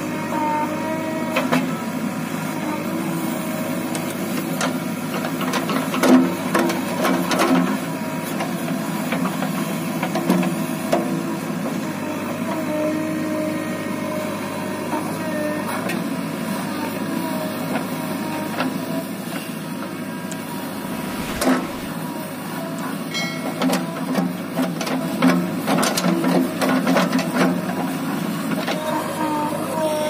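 JCB 3DX backhoe loader's diesel engine running steadily under load while the backhoe arm digs mud. A few sharp knocks stand out, one about six seconds in and another a little past twenty seconds.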